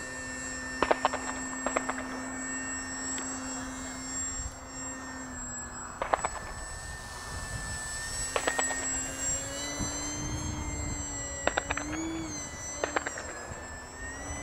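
Electric motor and propeller of an H-King Savage Bobber RC plane in flight at about half throttle: a steady whine that wavers and rises briefly near the end. A few short groups of sharp clicks sound over it.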